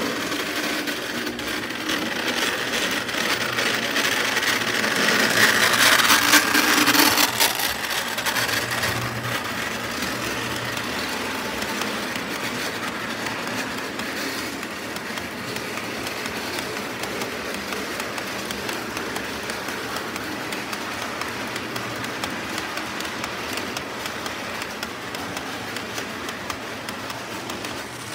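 Lionel postwar 51 Navy Yard switcher running on three-rail O gauge track, its motor whirring and wheels rumbling and clicking on the rails. It is loudest as it passes close, about five to seven seconds in, then settles to a steady rolling sound as its train of ore cars goes by.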